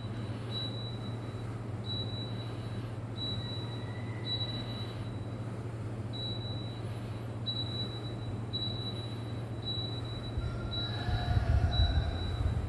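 Changhong CSC-18NVB2 mini split air conditioner running with a steady low hum and airflow noise. A faint high tone repeats about once a second, and a louder low rumble swells near the end.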